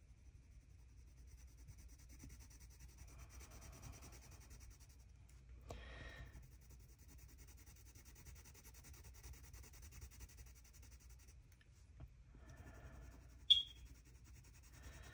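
Faber-Castell Polychromos colored pencil rubbing back and forth on hot-press watercolor paper, a faint steady scratching as a swatch is shaded, with a short louder stroke about six seconds in. A single brief sharp click comes near the end.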